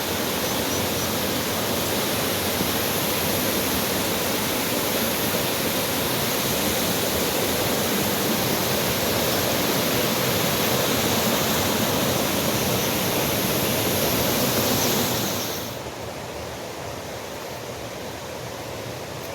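Rushing water, a steady hiss, that drops to a quieter, duller hiss about fifteen seconds in.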